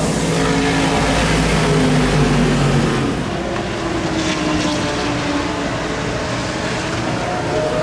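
Steady drone of several engines whose pitches drift slowly up and down, typical of race cars running on a circuit. For the first three seconds a propane stove burner hisses close by.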